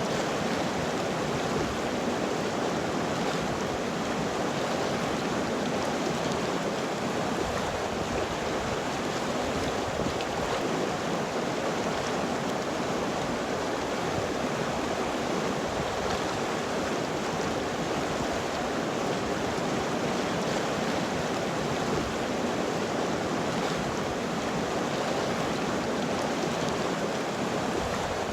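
River water flowing in a steady, even rush with no breaks or changes.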